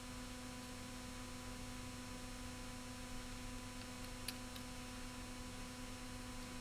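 Faint steady electrical mains hum, a few fixed tones over a low hiss, with one small click about four seconds in.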